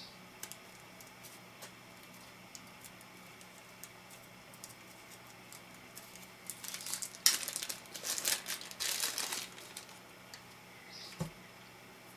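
Small clear plastic bag being worked open by fingers: faint ticks at first, then its thin film crinkling and tearing for about three seconds in the middle, and a single soft knock near the end.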